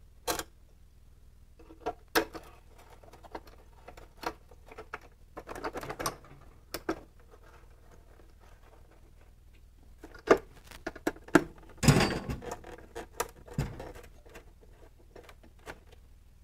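A small hand wrench and screws being handled at the lid of a portable power station: irregular light clicks, taps and scrapes of metal on metal and plastic as the screws are set in. The loudest knocks come about twelve seconds in.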